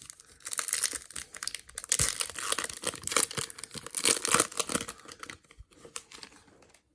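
A 2016 Topps Chrome baseball card pack's wrapper being torn open and crinkled, with a dense run of crackling that thins to a few light rustles and clicks near the end.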